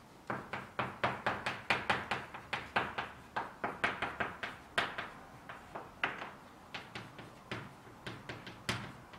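Chalk writing on a blackboard: a quick run of sharp taps and short scrapes, about four a second, thinning out after about five seconds.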